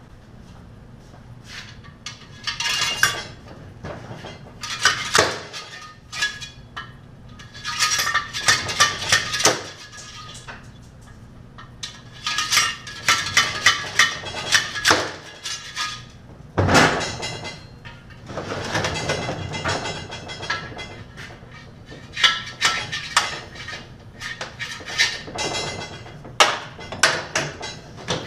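Metal parts clinking and tapping against each other in bursts of rapid strikes as the last parts are stripped off a 350 small-block Chevy engine block, with one sharper knock about halfway through.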